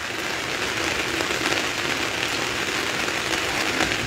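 Heavy tropical rain falling steadily on floodwater: a dense, even hiss.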